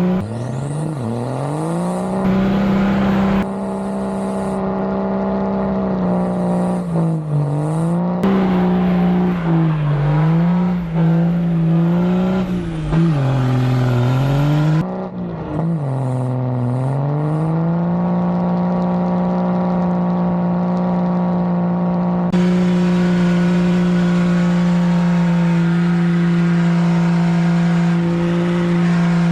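Car engine revving hard in a burnout, its pitch climbing at first and then dipping and rising several times. For the last twelve seconds or so it holds steady at high revs, with the hiss of spinning tires underneath.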